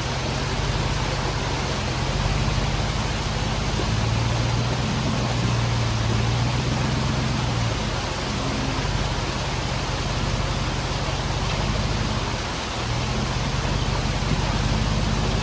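A Jeep Wrangler JL's swapped-in 6.1-litre Hemi V8 runs steadily at low revs with a low rumble while crawling. It sits under a loud, even hiss. The engine note swells for a few seconds about four seconds in.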